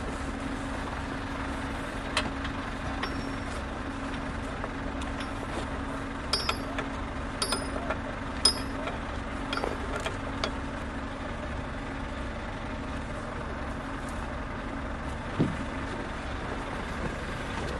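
Scania R650 timber truck's V8 diesel idling steadily while parked, with a few sharp metallic clinks, most of them between about six and nine seconds in.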